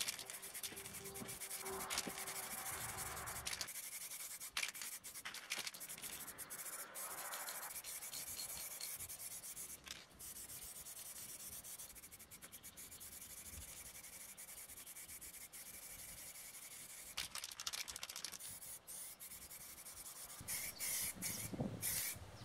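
Hand scrubbing and sanding the worn, flaking paint on an air compressor's steel pressure tank, a continuous scratchy rubbing that comes and goes with the strokes.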